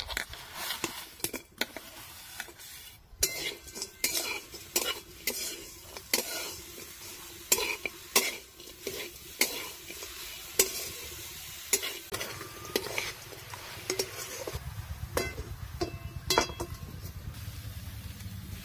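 Metal spatula scraping and clinking against a metal wok, with irregular strokes, while stirring grated coconut and jaggery together.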